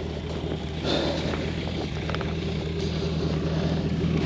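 A vehicle engine idling steadily, with a few faint clicks over it.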